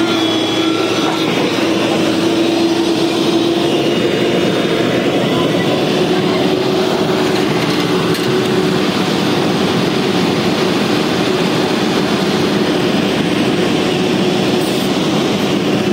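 Hyundai crawler excavator's diesel engine running steadily: a constant drone with an even hum and no knocks or impacts.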